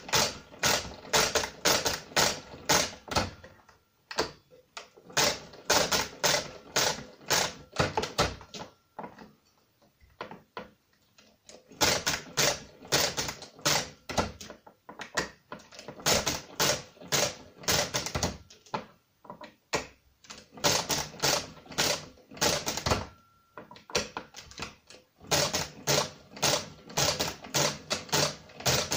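Brunsviga pinwheel mechanical calculator being hand-cranked through a calculation, each turn of the crank giving a sharp mechanical clack, about two a second. The clacks come in runs of several seconds with short pauses between them.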